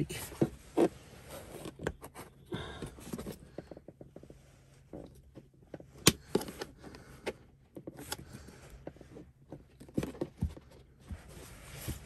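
A plastic trim removal tool prying and working at a car's interior plastic trim panel: irregular clicks, taps and short scrapes of plastic on plastic, with sharper clicks about halfway through and again near the end.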